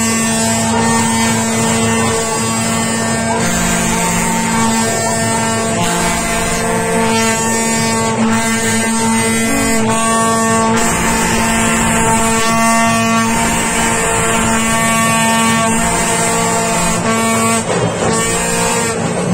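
Loud procession music: a wind instrument plays long held notes that shift in pitch, over a steady drone, with drums beating underneath.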